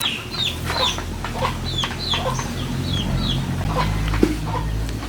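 Chickens clucking, with many short high falling chirps about three a second, over a steady low hum.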